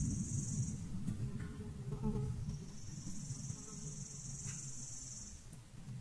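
Insects buzzing in a high, even drone, in two stretches: a short one at the start and a longer one of about three seconds from midway. Beneath it is a low rumble that slowly fades.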